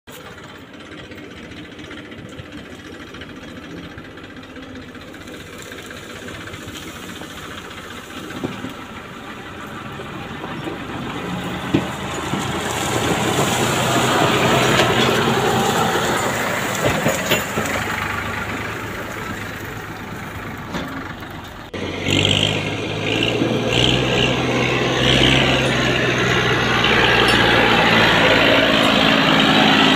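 Massey Ferguson tractor's diesel engine running as it hauls a loaded trailer along a dirt track, growing louder as it draws near. About two-thirds of the way through the sound cuts to a closer, louder, steady engine note.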